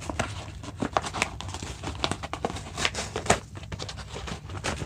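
Mailed package being opened by hand: irregular crinkling and rustling of wrapping with quick sharp crackles and snaps.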